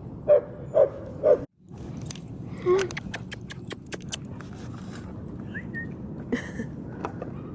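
A dog barks three times in quick succession, then a run of quick light clicks over steady outdoor background noise.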